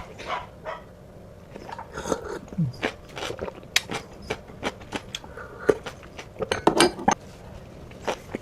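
Close-miked mouth sounds of eating a garlic-scape bibimbap: wet chewing and lip smacks, with many short sharp clicks coming irregularly.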